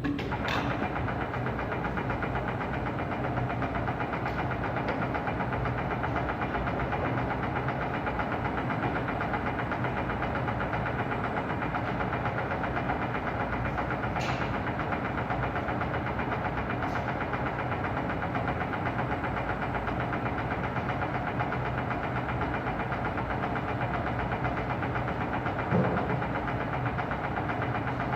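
Webo Varia 25 pillar drill running steadily, its motor and spindle drive giving an even mechanical hum. There is a click just after the start, another about halfway through, and a short knock near the end.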